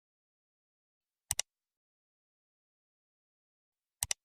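Two sharp double clicks, about two and a half seconds apart, against dead silence.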